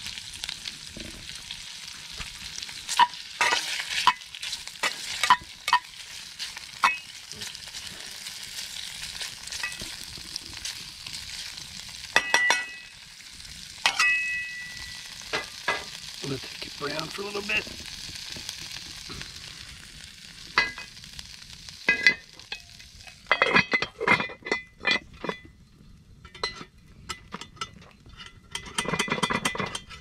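Diced Spam frying in vegetable oil in a cast iron Dutch oven: a steady sizzle, broken by the knocks and scrapes of a utensil stirring against the pot. In the last seconds the sizzle dies down and a run of metal clinks and clatters takes over.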